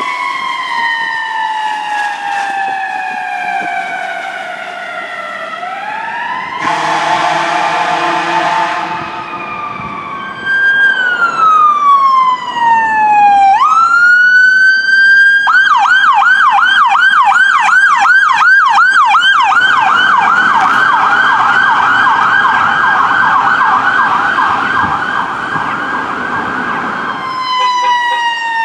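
Fire truck sirens: a slow falling wail, then a blast of air horn several seconds in, then another wail that jumps into a loud, fast yelp from the Ford Transit fire squad van, held for about twelve seconds and cutting off near the end, where a new wail begins.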